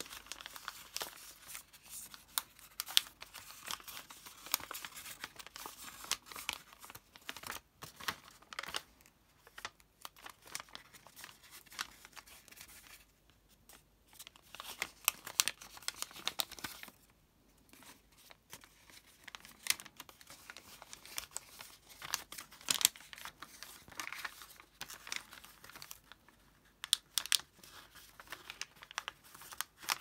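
A sheet of origami paper being folded and creased by hand: irregular crinkling and crackling with sharp snaps as the creases are pressed. There are two short lulls near the middle.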